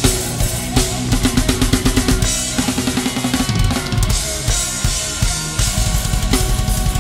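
Thrash metal drum kit played hard: fast fills of rapid drum strokes with cymbals, giving way about five and a half seconds in to a driving run of quick bass drum beats.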